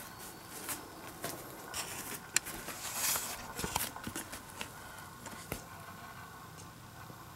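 Scattered small clicks and soft rustling, busiest and loudest about three seconds in.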